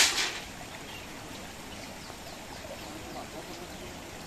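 Steady trickle of a small stream, with faint bird chirps; a sharp knock, quickly repeated, at the very start.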